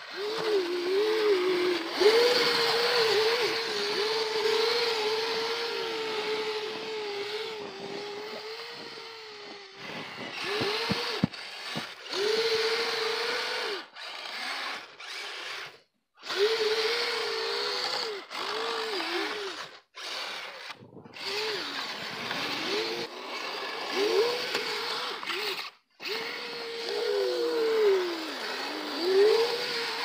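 Kyosho Blizzard RC snowcat's two brushed Traxxas Titan 380 electric motors whining as the tracks are driven through deep snow, the pitch rising and falling with the throttle and stopping briefly several times.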